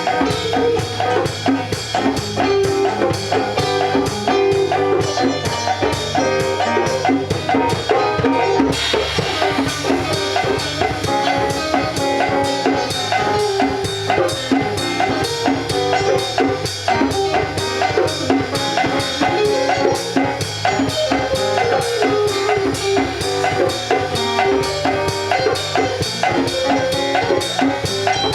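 Instrumental music with a steady drum-kit beat under melodic pitched instruments; about nine seconds in, cymbals or hi-hat join and the sound gets brighter.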